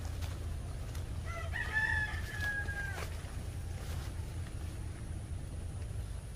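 A rooster crowing once: a call of about two seconds that rises into a long held note and cuts off sharply, over a steady low rumble.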